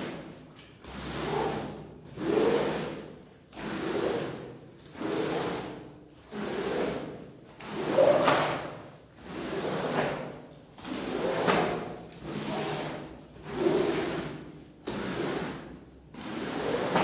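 A rug being washed, worked over in long, even swishing strokes, a little under one a second.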